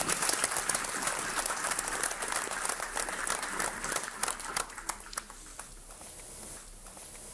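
Audience applauding: many hands clapping together, thinning out and dying away about five seconds in.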